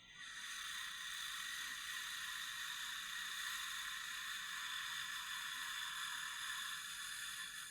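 Monster breathing sound effect: one long, steady, airy hiss of breath that starts suddenly and holds without a break.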